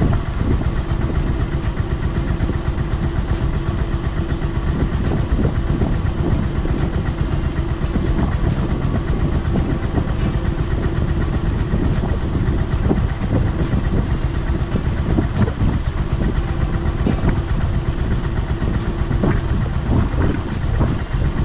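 Small fishing boat's engine running steadily under way, with water rushing past the hull.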